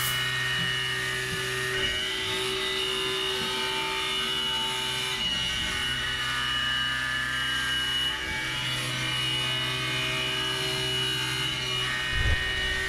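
CNC milling machine cutting G10 fiberglass composite with a 1/2-inch diamond-coated burr-style end mill at 3820 RPM under flood coolant: a steady machining hum with a high whine over the hiss of the coolant spray.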